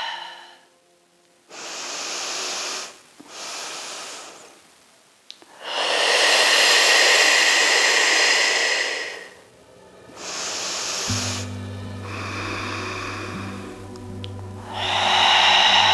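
A woman's deep yoga breathing, picked up close by a clip-on microphone: a run of audible breaths in and out, the longest exhale lasting about four seconds in the middle.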